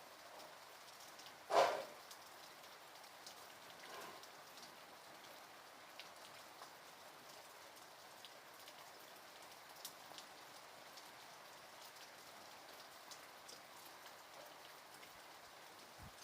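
Light rain falling, a soft, faint patter of drops, with one short louder sound about a second and a half in.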